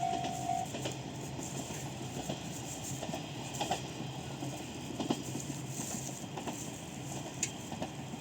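KiHa 100-series diesel railcar running at a level crossing, a steady low engine drone with a few scattered clicks; the crossing's pulsing electronic alarm tone stops about half a second in.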